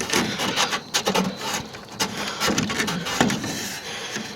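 Irregular rubbing and scraping with a string of light knocks, as of hands handling and shifting something.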